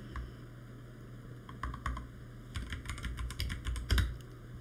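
Typing on a computer keyboard: a few scattered keystrokes about a second and a half in, then a quick run of keystrokes.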